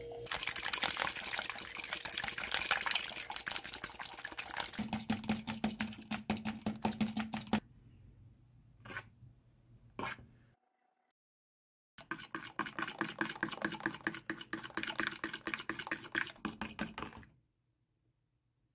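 Mixing by hand in a plastic bowl: a metal whisk, spoon and fork beaten quickly through liquid and batter, making rapid clicking strokes against the bowl. A steady low hum runs with the strokes for a few seconds near the middle, and the strokes stop briefly before resuming.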